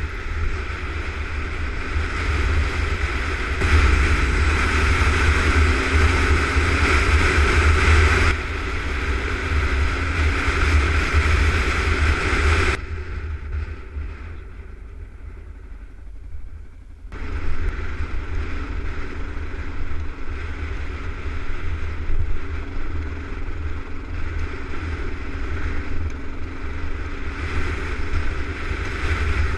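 Dual-sport motorcycle engine running under way on a dirt track, with wind rumbling on the camera microphone. The sound is louder for a few seconds early on, drops away for about four seconds around the middle, then picks up again.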